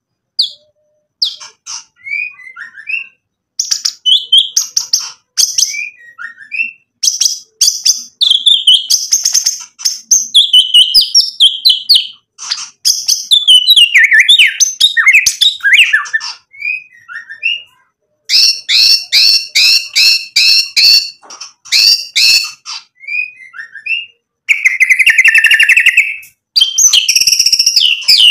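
White-rumped shama (murai batu) singing continuously, showing off a varied repertoire: quick whistled and chattering phrases, a fast run of sharp repeated notes about two-thirds of the way through, and a buzzy rattling phrase near the end.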